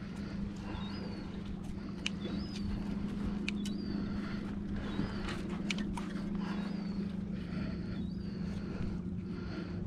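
A steady low motor drone that holds one pitch throughout. Over it, a short high chirp repeats about once every second or so, and a few sharp clicks sound as the hooked dogfish is handled.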